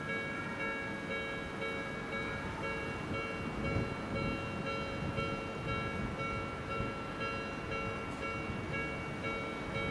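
Odakyu 1000 series electric commuter train running in along the track, a low uneven rolling noise, with several steady ringing tones held over it.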